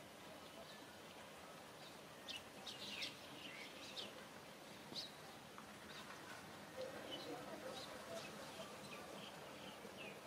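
Faint outdoor background with scattered short, high bird chirps, several in quick succession a couple of seconds in and more at intervals after.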